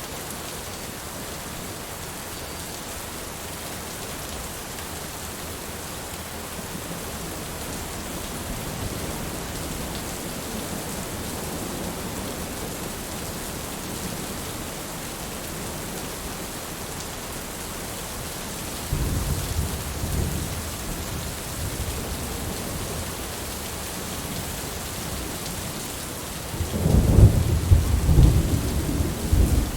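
Steady rain falling, an even hiss throughout. Low rumbles of thunder roll in about two-thirds of the way through, and a louder, longer rumble comes near the end.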